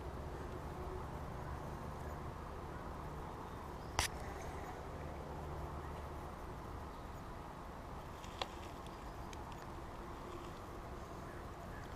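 Steady outdoor background noise with a low rumble, broken by one sharp click about four seconds in and a smaller click a little past eight seconds.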